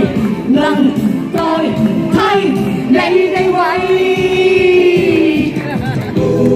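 A singer performing a classic Cantopop song over backing music, holding one long note about halfway through.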